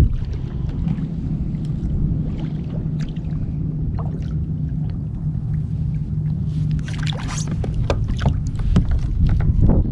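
A hooked redfish thrashing and splashing at the surface beside a kayak, with a cluster of sharp splashes about seven to eight and a half seconds in, over a steady low rumble.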